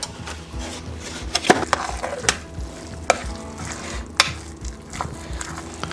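A spoon stirring thick cornbread batter in a glass Pyrex measuring cup, with several irregular sharp clicks as the spoon strikes the glass.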